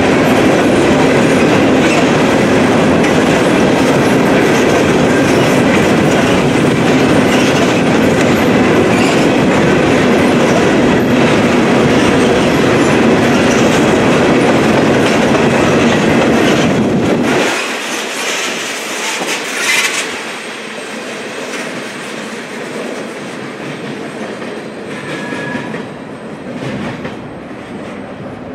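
Freight train hopper cars rolling past close by, a loud steady rumble of wheels with clickety-clack over rail joints. About 17 seconds in it drops off abruptly to a much quieter, thinner rolling sound of the train farther away.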